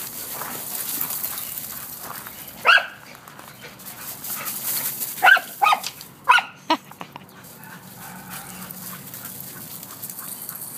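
An excited dog barking: one short, sharp bark nearly three seconds in, then four quick barks between about five and seven seconds in.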